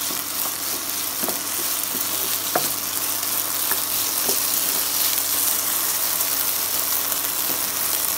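Diced potatoes sizzling steadily in hot oil in a nonstick kadhai as they are sautéed to crisp, stirred with a wooden spatula that knocks on the pan a few times in the first half.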